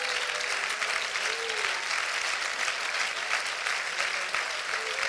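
Church congregation applauding steadily, a dense patter of many hands clapping.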